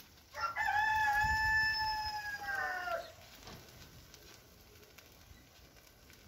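A rooster crowing once, a single long call starting about half a second in and lasting about two and a half seconds, its pitch dropping at the end.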